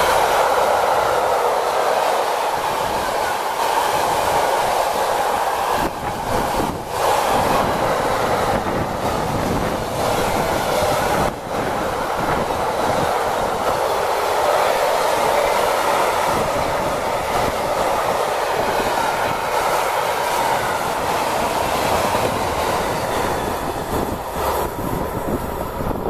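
Freight train wagons, car-transporter wagons and then tank wagons, rolling past at speed on the track: a steady loud rolling rumble and rail noise that dies away as the tail of the train passes near the end.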